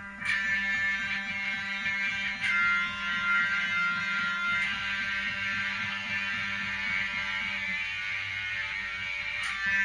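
Slow jam on guitar and electric bass: held, ringing guitar chords struck afresh about every two seconds, then once more near the end, over a steady bass note.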